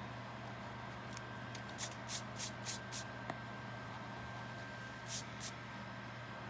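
Pencil eraser scrubbing on sketchbook paper: a quick run of five short rubbing strokes about two seconds in, then two more near the end, over a steady low hum.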